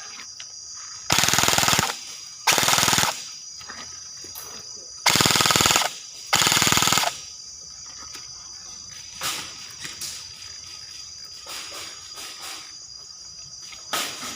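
Airsoft guns firing four short full-auto bursts of rapid shots, in two pairs, each burst lasting under a second. Fainter shots follow near the end.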